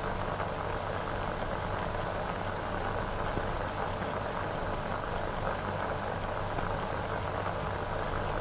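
Steady hiss with a low hum from the worn soundtrack of a 1940 film print; nothing else sounds.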